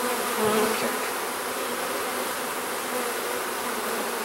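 Honeybees buzzing in flight around an open hive, a steady hum with single bees droning close past now and then; many are in the air because they have just been released from a nuc box.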